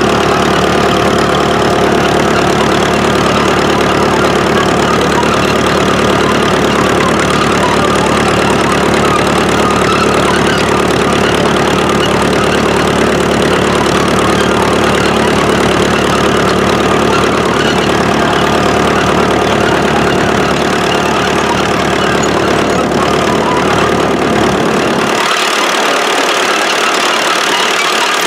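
A 1955 International TD6 crawler's four-cylinder diesel engine running steadily as the crawler travels. About three seconds before the end the deep rumble drops away.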